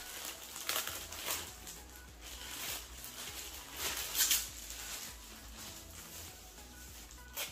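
Clear plastic packaging crinkling and rustling in the hands as a tightly wrapped parcel is pulled out and unwrapped, in irregular bursts, loudest about four seconds in.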